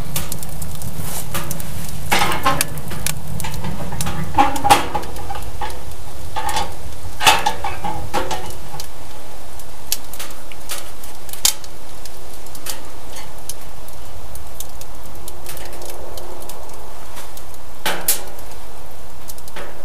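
Wood fire burning hard in a tent stove, crackling and popping over a steady rush. Scattered sharp clicks run throughout, with a few louder ringing clinks in the first half.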